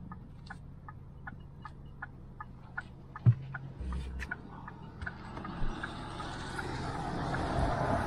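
Pickup truck's turn signal clicking about three times a second inside the cab, over the low hum of the idling engine, with a single thump about three seconds in. From about five seconds in, the engine noise of a Volvo wheel loader pulling alongside grows steadily louder.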